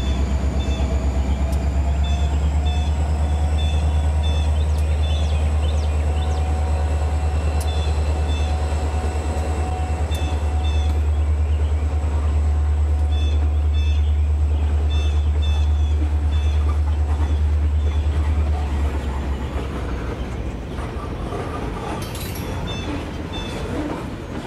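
N scale model train, an Erie Lackawanna GP7 pulling autoracks and boxcars, running past on the track. A low steady hum runs under a thin high whine, and the wheels click in quick pairs over the rail joints. The hum fades about nineteen seconds in, leaving lighter clicking as the last cars go by.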